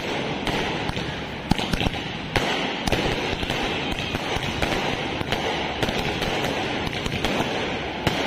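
Aerial fireworks going off: a constant crackle, broken by sharp bangs at irregular intervals, several in the first three seconds and another near the end.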